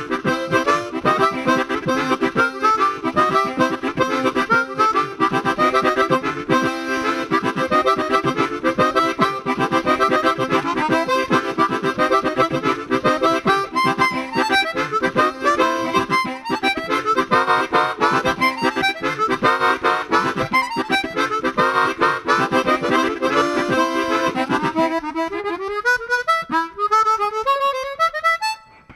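Chromatic harmonica playing fast, dense runs of notes over a sustained low drone. The drone drops out about 25 seconds in, leaving the harmonica on its own, with a brief pause near the end.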